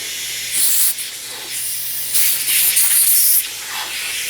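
Compressed air hissing through an inner tube's valve stem in two bursts, a short one and then a longer one of about a second.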